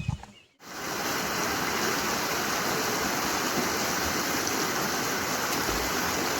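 Steady rush of a mountain stream's flowing water, setting in right after a cut about half a second in and holding even throughout.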